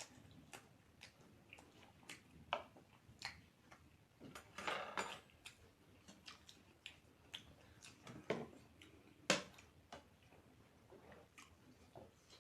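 Close-up eating sounds of someone chewing momo dumplings: irregular faint wet clicks and smacks of the mouth, with a longer, noisier stretch about five seconds in and a couple of sharper clicks a little later.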